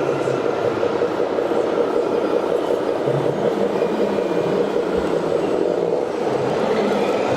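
Radio-controlled scale model trucks running, a steady mechanical hum and whir.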